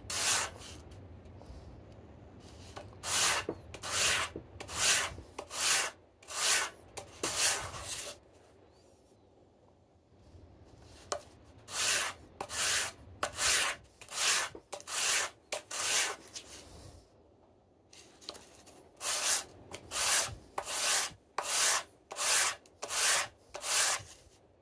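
A small round wooden disc rubbed back and forth on sandpaper laid flat on a board: regular gritty scraping strokes, a little faster than one a second, in three runs with short pauses between. It is flat-sanding the underside of a carved goblet base, grinding down the high spots so it sits stable.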